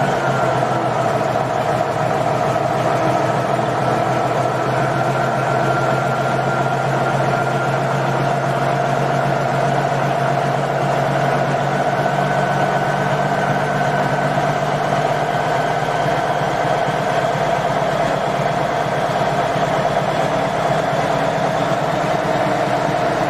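Cummins Big Cam III NTC-400 inline-six turbo diesel idling steadily, still cold after a cold start, with a thin high whine over the idle.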